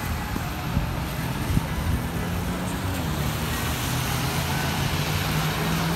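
Steady street traffic noise on a wet road: a continuous hiss with a low engine hum underneath.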